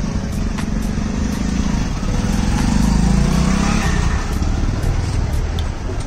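Motorcycle engine running as the bike rides past close by, its rumble growing loudest about halfway through.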